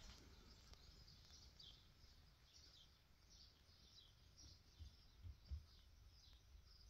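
Near silence, with faint bird chirps repeating every half second or so, and a couple of soft low thumps a little past the middle.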